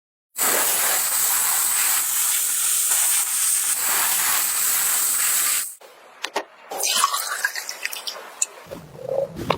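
Steady loud hiss of a high-pressure spray, starting abruptly about half a second in and cutting off after about five seconds, followed by quieter scattered clicks and scraping.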